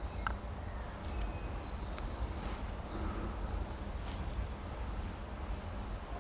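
Quiet outdoor ambience: faint, short bird chirps over a low, steady background rumble.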